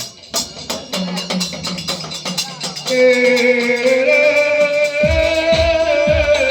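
Indian devotional folk music: quick percussion strokes at first, then a sustained melody line enters about three seconds in, with deep bass drum beats joining near the end.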